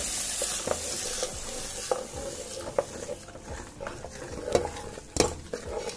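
A spoon stirring in a cooking pan, with irregular scrapes and knocks against the pan, as blended curd is worked into the hot liquid a little at a time. A hiss from the hot pan fades away in the first second or so.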